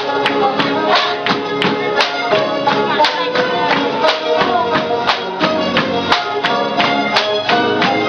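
Lively Tinikling dance music played through the sound system: a bright, pitched tune over a regular, sharp percussive beat of about two clicks a second.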